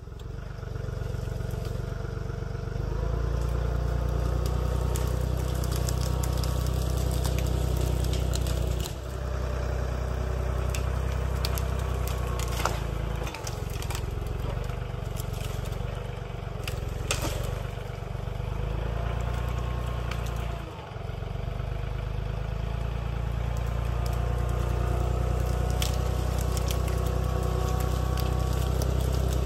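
John Deere 3033R compact tractor's three-cylinder diesel running steadily under load, its note dipping a few times, while its grapple drags fallen pine limbs and branches snap, crack and scrape.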